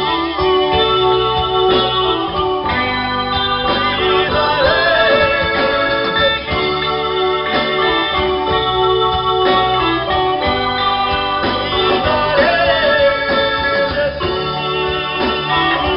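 Instrumental intro of a cumbia-style band song: an electronic keyboard with an organ sound carries the melody over bass guitar and drums.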